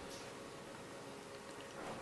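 Faint, soft handling noises of fingers fitting small parts and wires into an open airsoft gearbox, over a steady faint hiss and hum.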